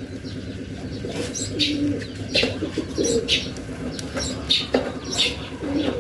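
Doves cooing repeatedly, with small birds chirping over them.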